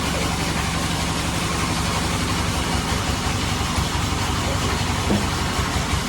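Sawmill band saw machinery running steadily, a constant engine-like drone with a hiss above it.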